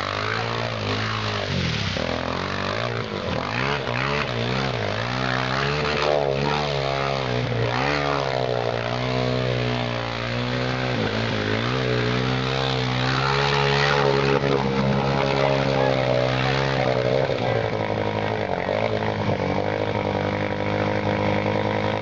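ATV engine running hard under load as the quad churns through deep mud, its pitch rising and falling again and again, then holding steadier near the end.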